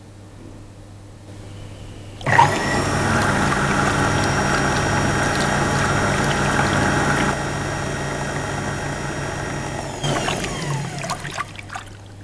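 Jets vacuum toilet flushing: about two seconds in the discharge valve snaps open with a sudden loud rush of air and water being sucked away, which runs steadily for several seconds and then eases. Near the end the rush dies away in a falling whistle and a few clicks as the valve closes.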